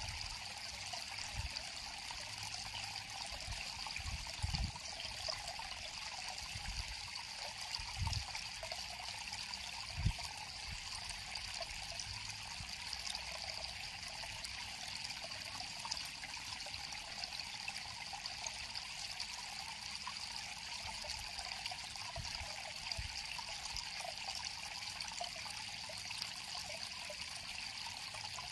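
River water flowing and trickling steadily, with a few brief low bumps.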